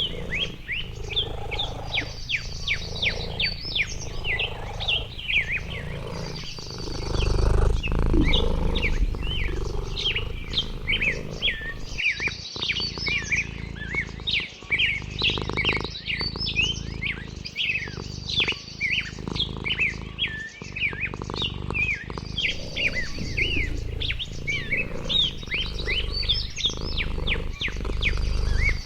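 Many small birds chirping rapidly, with short trills repeating every second or two, over a low background rumble.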